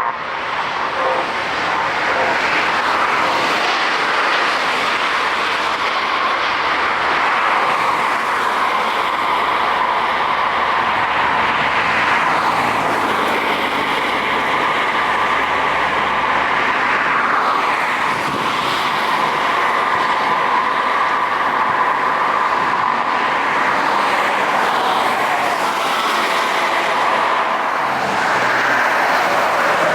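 Jet airliner engines at takeoff power, a loud, steady rushing noise with a few slow sweeps in pitch as the aircraft passes.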